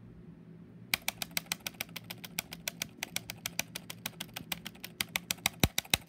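The numpad zero key of a white Apple keyboard being hammered repeatedly. After a short pause it gives rapid, sharp clacks, about eight a second.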